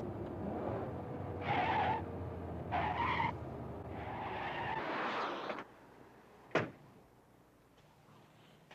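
A car drives up and brakes to a stop, with tyres skidding on the road surface and engine noise fading out. About a second later comes one sharp slam, a car door.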